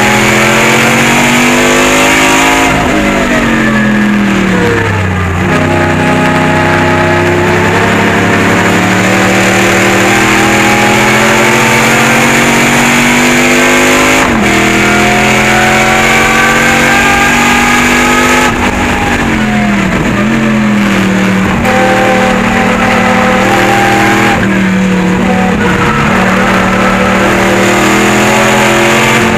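Firebird race car's V8 engine heard from inside the cockpit at racing speed. The revs climb and fall repeatedly through gear changes, with one sudden drop in the middle from an upshift.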